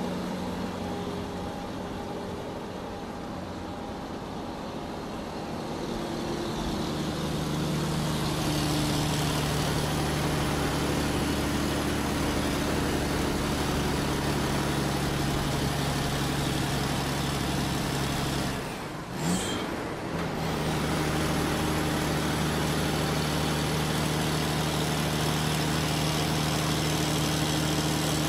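An engine idling with a steady low drone. It settles to a slightly different pitch a few seconds in, drops out briefly with a short pitch glide about two-thirds of the way through, then carries on as before.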